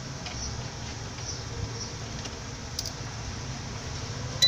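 Low steady background hum with a small click about three seconds in. Near the end a sharp click as the repaired UPS inverter switches on, and a steady high beep starts, which is put down to its weak battery.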